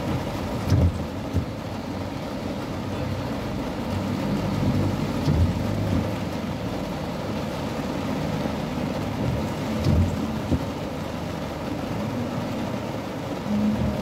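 Rain on a car's windshield and roof with the car's engine running, and a low thump about every four to five seconds from the windshield wipers sweeping.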